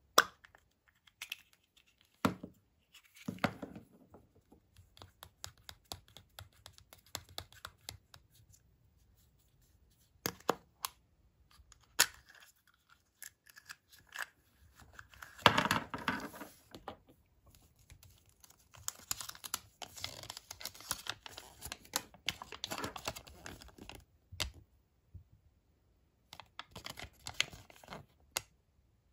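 Close-up hand sounds of opening a Kinder Surprise egg: a sharp snap as the chocolate shell is split along its seam at the start, then clicks and rattles as the plastic capsule is opened and the toy pieces handled. Paper crinkling and rustling follow as the folded leaflet is unfolded near the end.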